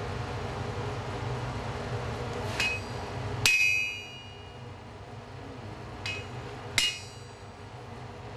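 The steel blade of a forged Yakut ice chisel (peshnya) is struck against an anvil four times, in two pairs. Each blow is a sharp metallic clang with a bright ring, and the second rings longest. The blows straighten the chisel's shank and knock off forge scale. A steady low hum underlies the first half.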